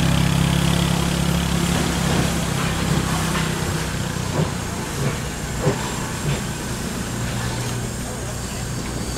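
Small steam locomotive moving off slowly, with a steady hiss of steam and two knocks from the running gear about a second apart in the middle. A utility vehicle's small engine hums for the first few seconds and then fades.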